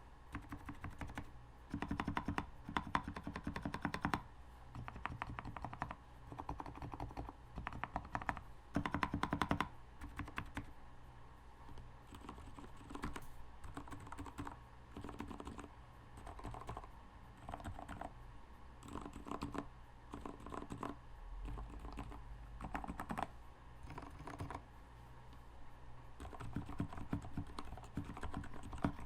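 Typing on a modded custom 60% mechanical keyboard built on a DZ60 board: a continuous run of rapid key clicks, louder and denser in stretches about two to four seconds in and again around nine seconds.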